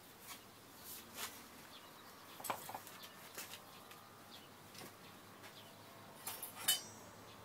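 A few scattered light clicks and taps from handling the opened-up engine of a small engine water pump, the loudest near the end, over a faint background.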